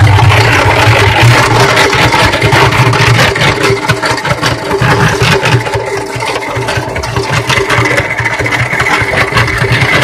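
Cement mixer running as a makeshift washing machine, its drum turning a load of clothes in water. There is a steady motor hum with continual rattling.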